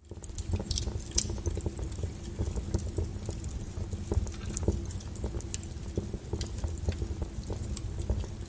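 A small fire in a fireplace crackling, with a steady low rumble under irregular pops and snaps, a few of them sharper and louder.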